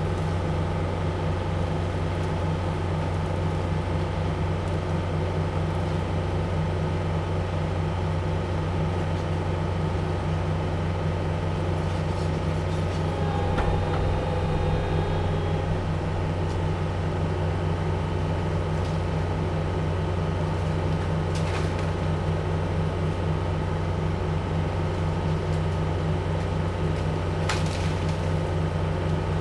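Heavy machine's diesel engine running at a steady working speed, with a faint whine for a couple of seconds about halfway through and two light clicks later on.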